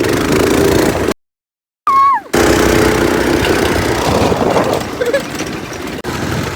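Go-kart engine running loudly while driving, cut off briefly about a second in before resuming.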